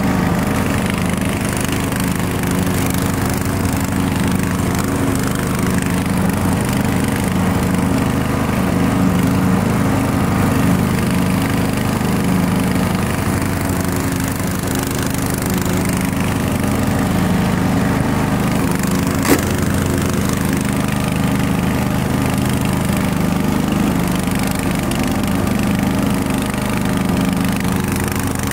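Murray Select 17.5 hp riding mower engine running steadily while mowing grass. One sharp click about two-thirds of the way through.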